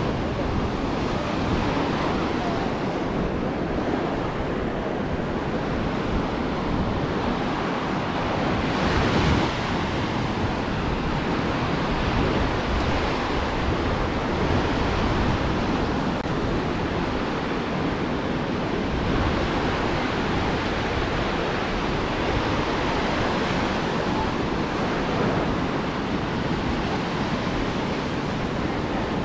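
Ocean surf washing onto a beach in a steady rush, with one louder wave breaking about nine seconds in. Wind rumbles on the microphone underneath.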